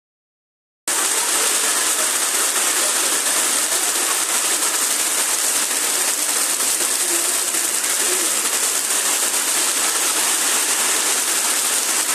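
Heavy rain pouring down in a steady, unbroken hiss that starts about a second in.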